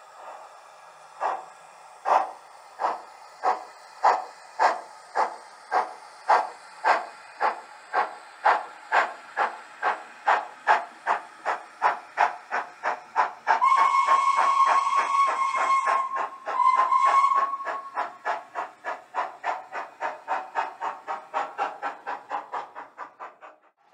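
Sound-fitted model steam locomotive (DCC sound decoder of a model LNER W1 'Hush Hush' 10000) pulling away: steady exhaust chuffs that gradually quicken, a long whistle blast followed by a short one about halfway through, then the chuffs fading away near the end.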